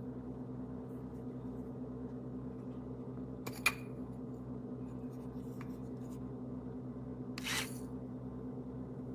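Steady low hum with two brief sounds on top: a sharp click a little over a third of the way in, and a short rustle about three-quarters of the way through.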